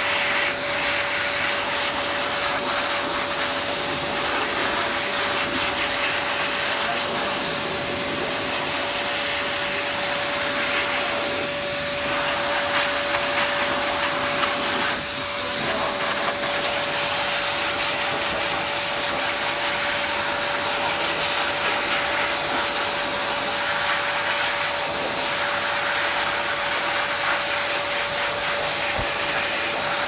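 Pet grooming blower dryer running steadily through its hose nozzle: a constant rush of air with a steady whine, blowing dry a wet parrot's feathers.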